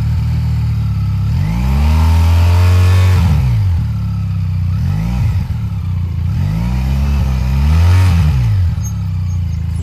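Benelli TRK 502X motorcycle's 500 cc parallel-twin engine running and revved up and down several times, the bike stuck and not pulling, which the rider takes for an overheated clutch plate.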